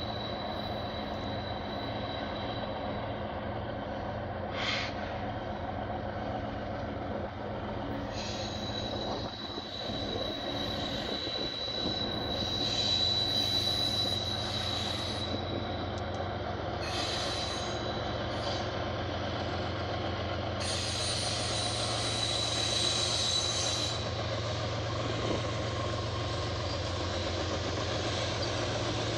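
Freight train led by BNSF diesel locomotives creeping slowly around a curve, with a steady low engine rumble that grows as the locomotives draw near. A high, thin wheel-flange squeal from the curve comes and goes, strongest in short spells in the middle and later part.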